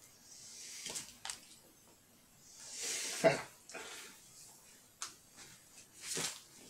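Ranax 12 oz boxing gloves being pulled on and their wrist straps tugged tight: bouts of rustling and scraping with a few sharp knocks. The loudest is a scrape about three seconds in.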